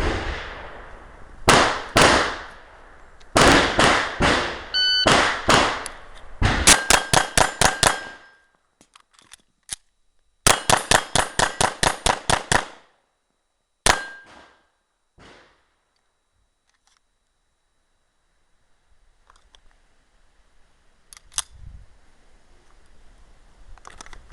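Gunshots at a shooting range: irregular single shots, then two rapid strings of about eight and ten shots, roughly five a second. After that come a few scattered shots with a quiet stretch between them.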